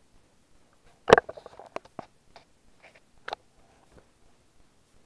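Trading cards being handled and shuffled in the hands: a sharp click about a second in, then a scatter of light ticks and slides of card stock, with another click a little past three seconds.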